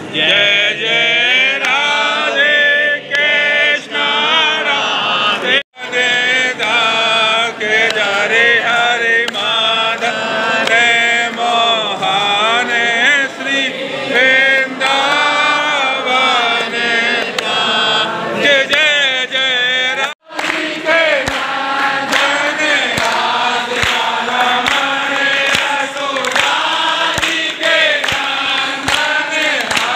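A crowd of worshippers singing a Hindu devotional hymn together. In the last third, steady hand-clapping keeps time, roughly one and a half claps a second.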